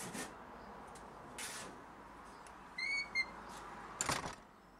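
A hand saw rasping through timber in a few strokes, then a short high squeaking whistle about three seconds in and a single harsher rasp about a second later.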